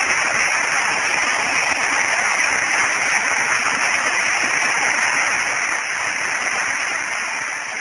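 Audience applauding steadily, a dense crowd of clapping that eases off slightly near the end.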